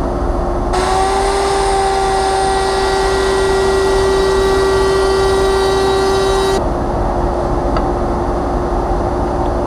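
Router in a router table running with a steady whine. From about a second in until about six and a half seconds, a raised-panel bit cuts the profile along the edge of a sample panel, adding a loud cutting noise. The router then runs on freely.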